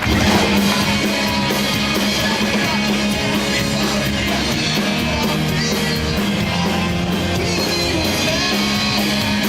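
Rock music with guitar and singing, cutting in suddenly and holding loud and even.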